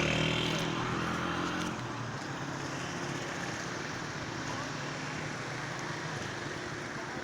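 A motor vehicle engine running, fading away about two seconds in. A steady rushing noise continues under it and after it.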